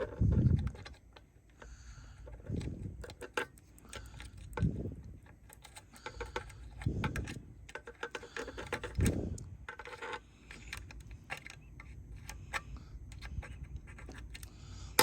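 Small clicks, taps and light metallic rattles of hand tools and wire being handled during soldering work, with a few dull low knocks.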